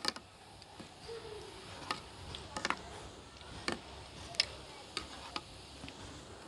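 Boondi batter frying in hot oil in an aluminium karahi: a faint steady sizzle with scattered sharp pops and ticks.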